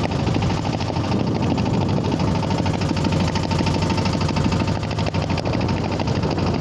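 Fishing boat's engine running steadily under way, a low hum with a fast, even pulse, with water rushing and splashing past the hull.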